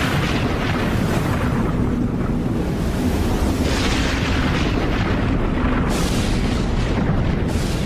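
Loud, continuous rumbling noise like explosions, with rushing swells of hiss every second or two, typical of a video's intro sound effects.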